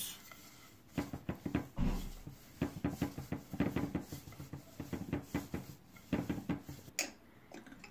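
Wooden rolling pin rolling out pastry dough on a countertop: a run of light, irregular knocks and taps, starting about a second in.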